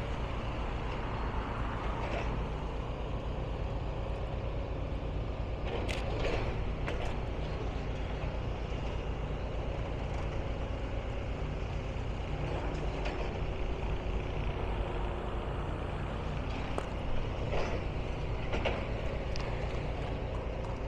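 A heavy diesel engine running steadily, with a few short knocks and clatters, about six seconds in and again near the end.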